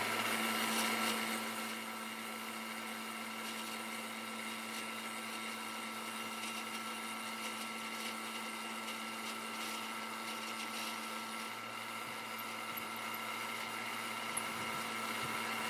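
Bridgeport milling machine running, its end mill taking a light 0.005-inch facing pass along an aluminium plate: a steady machine hum and whine. It is a little louder in the first second or two and again near the end.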